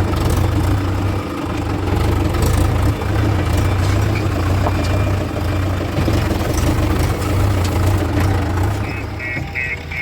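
Heavy diesel engine of earthmoving machinery running steadily with a deep, slightly wavering hum. Near the end a high-pitched beep starts repeating, about two or three times a second.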